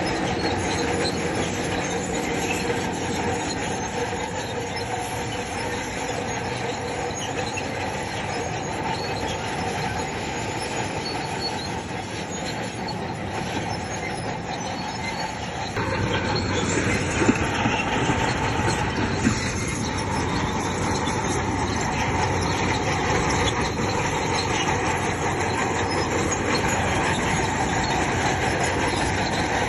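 Crawler bulldozer at work: its engine running under steel tracks that squeal and clatter. The sound gets louder and deeper about halfway through, with a couple of sharp clanks soon after.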